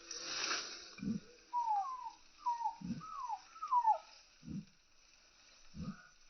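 Chickens foraging: short low clucks come about every second and a half, and in between a run of five short calls falls in pitch. A brief rustling burst opens the sound.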